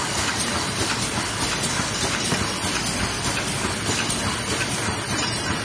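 Eraser packing machine running at speed: a steady mechanical clatter of regular clicks over a constant hiss.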